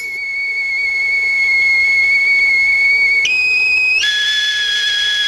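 High, pure whistle-like notes held one at a time as music: a long steady note, a slightly higher one about three seconds in, then a drop to a lower held note about a second later.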